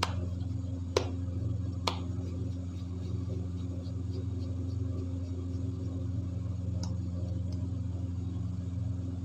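A steady low mechanical hum runs throughout, with three sharp clicks in the first two seconds while dough balls are shaped by hand in a plate of dry flour.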